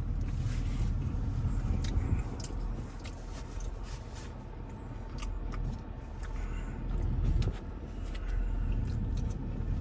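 A man chewing a bite of a fried fish sandwich, with scattered small mouth clicks, over a steady low hum.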